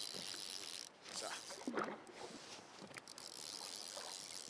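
Fly reel being wound in, with line coming back in: an intermittent zipping, ratcheting sound.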